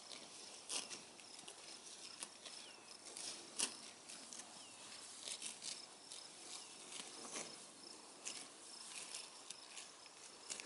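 Red Devon cattle tearing and chewing grass at close range: irregular crisp rips and crunches, a few a second, the sharpest about a second in and again near the middle. A faint steady high insect trill runs behind them.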